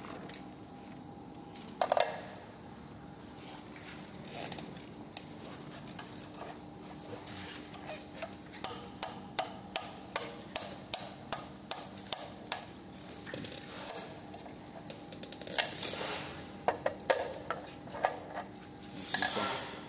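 Hex screwdriver ticking and clicking in the bolt heads as the shock absorber's mounting bolts on an electric scooter are turned: a run of light metal ticks about two a second, with a louder knock about two seconds in and a cluster of louder knocks near the end.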